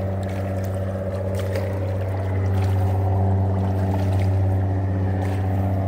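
Engine running steadily, a low even hum that does not change, with a few faint clicks over it.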